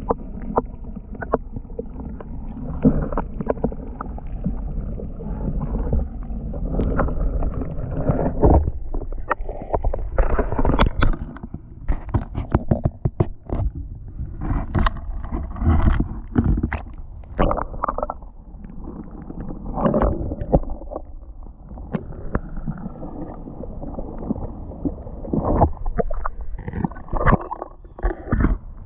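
Footsteps crunching and scraping over loose creek-bed stones and gravel, in an irregular run of knocks, over a steady low rumble on the handheld camera's microphone.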